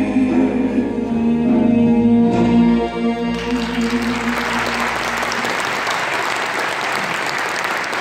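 A Turkish folk music choir and ensemble hold the final note of the song, ending it. About three seconds in, audience applause breaks out and carries on steadily while the last low tones fade away.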